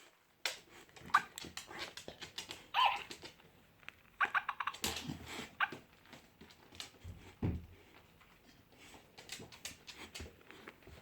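Dog giving short whines and whimpers, mixed with scuffling and clicking sounds, and a low thump about seven and a half seconds in.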